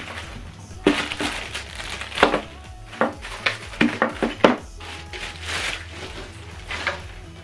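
Plastic bags of cables crinkling and rustling as they are handled, with several short knocks of items being set down on a table, over background music.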